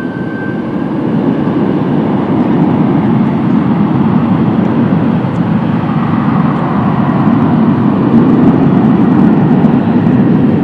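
Loud jet airliner engine noise, building over the first two seconds and then holding steady, with a thin high whine that fades out about a second in.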